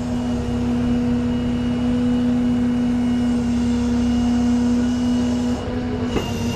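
Peterbilt rollback tow truck running its bed hydraulics and winch, a strong steady whine over the engine's rumble as the winch lets a wheeled toolbox down the tilted bed; the whine dips briefly near the end, with a short knock just after.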